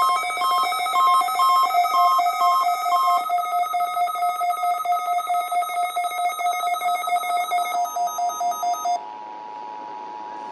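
Electronic alert tones from an emergency weather alert radio. A fast-pulsing, multi-pitched beeping pattern stops abruptly about nine seconds in and gives way to a quieter, steady two-note alert tone.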